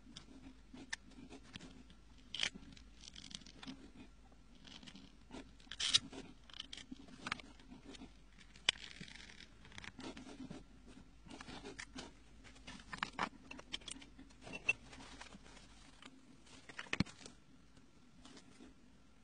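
Calligraphy pen nib scratching and scraping on paper as letters are written, in short strokes with scattered small clicks and a longer scratch about halfway through.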